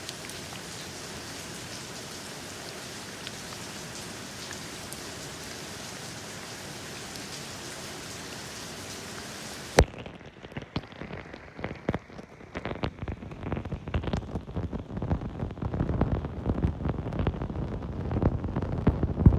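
Steady rain falling, an even hiss. About ten seconds in, a sharp click cuts it off and a louder, lower, uneven rumble with many crackles takes over, building toward the end.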